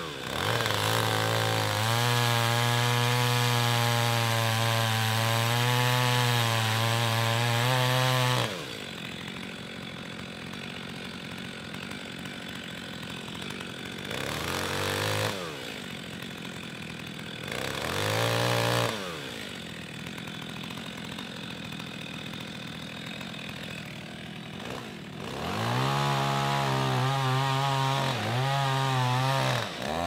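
Two-stroke chainsaw cutting into the base of a dead chestnut tree: a long cut at full throttle for the first eight seconds or so, dropping back to idle, two short blips of the throttle in the middle, then another cut at full revs near the end.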